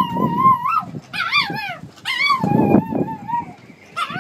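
Affenpinscher howling in about four drawn-out, wavering calls that rise and fall in pitch, with a short pause near the end.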